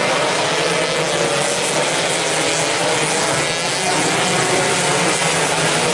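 A pack of standard two-stroke underbone racing motorcycles at high revs, several engines buzzing at once with overlapping pitches that rise and fall as the riders work the throttle through a corner.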